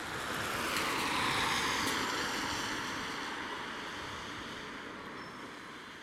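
A road vehicle passing close by, a rushing tyre-and-road noise that swells to a peak about a second and a half in and then slowly fades away.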